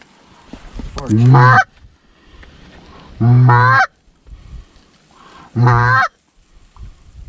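Canada goose call blown by a hunter: three loud, drawn-out honks about two seconds apart, each sliding up in pitch. The calling is meant to bring in geese that are locking up to land.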